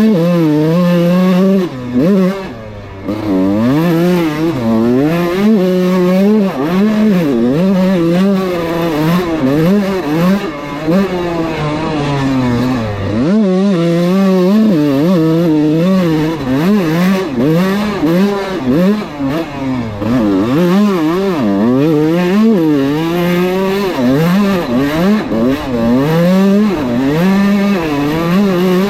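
Kawasaki KX125 two-stroke dirt bike engine ridden hard, its pitch climbing and dropping again and again as the throttle is opened and rolled off through the gears, with a short lull about thirteen seconds in.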